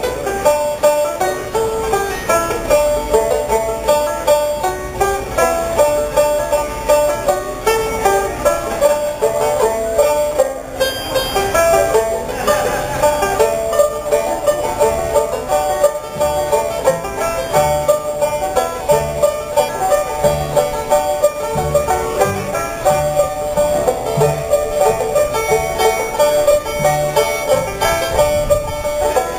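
Instrumental bluegrass: two banjos picking quick, rolling runs over a plucked upright bass, whose low notes come through more clearly from about a third of the way in.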